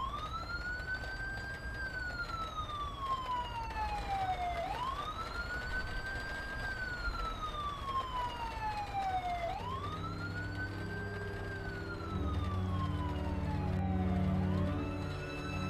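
Emergency-vehicle siren wailing, each cycle rising quickly and then falling slowly, repeating about every five seconds. Low held music notes come in about ten seconds in and swell near the end.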